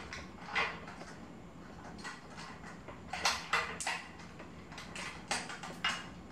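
Irregular metallic clicks and scrapes of bicycle headset parts being handled and fitted at the front of a folding bike, with a cluster of sharper clicks about three to four seconds in and more near the end, over a steady low hum.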